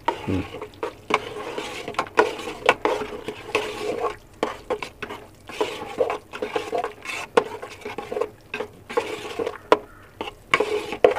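A steel spoon stirring a thick, wet rice-and-lentil mixture in a pressure cooker pot, with irregular clinks and scrapes as the spoon hits the pot's side and bottom.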